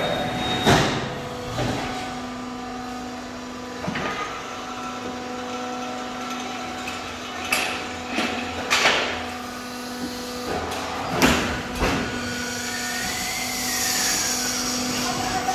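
Automatic fly ash brick-making plant running: a steady machine hum under irregular sharp metal clanks and knocks from the pallets and machinery. Near the end a brief whine rises and falls in pitch.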